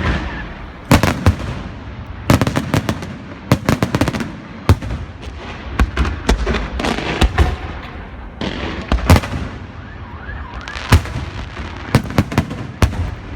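Fireworks and beehive rockets going off at close range: sharp, irregular bangs, several of them bunched in quick clusters, over a constant crackle and hiss.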